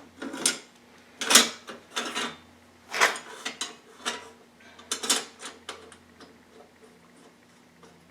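Hand tools clinking and clicking against metal in a string of sharp knocks, roughly one every half second to a second, as the 10 and 12 mm exhaust bolts are worked off a Yamaha WR426F dirt bike engine; the knocks die away after about six seconds.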